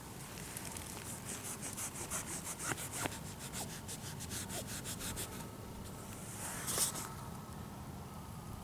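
Quick rubbing strokes, about four a second, of fingers working dirt off a freshly dug Indian Head cent. The strokes stop a little after five seconds in, followed by one brief louder scuff near seven seconds.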